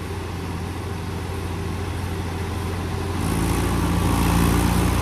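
Small tractor diesel engines running steadily, then pushed harder and louder about three seconds in as a Mahindra 265 DI strains with its rear wheel sunk in deep mud.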